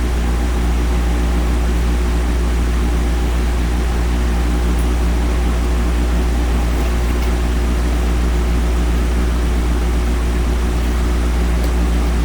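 A steady low hum over an even hiss, holding at one level with no sudden sounds.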